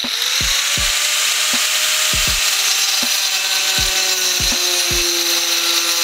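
Angle grinder with a 115 mm tungsten-carbide-grit wood-cutting disc running under load as it cuts through multilayer plywood, a steady loud whine and rasp whose pitch dips slightly as the disc bites.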